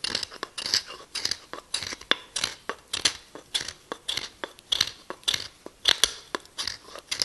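A second Japanese chisel scraping wood from the edge of a nomi's handle end in short, quick strokes, about three a second. The shaving takes the handle down so the steel hoop can be driven further on.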